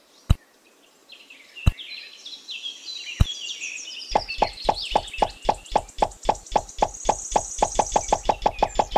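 Three sharp knocks a second or so apart, then an even run of knocks, about five a second and speeding up, with birds chirping over them.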